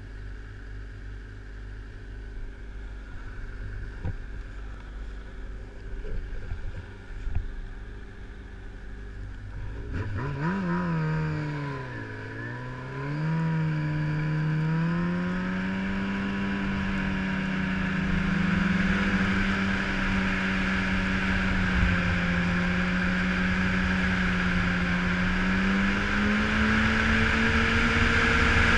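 Yamaha snowmobile engine idling with a few knocks, then revving about ten seconds in as the sled pulls away; the pitch dips briefly and settles into a steady cruising note that climbs slowly toward the end.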